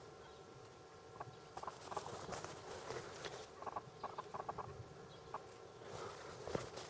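Footsteps swishing through tall grass and crackling handling noises close to the microphone, in short clusters, over a faint steady hum.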